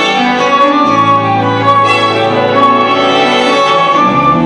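Symphony orchestra playing a slow ballad arrangement, with the strings to the fore over held chords. A low bass note comes in about a second in.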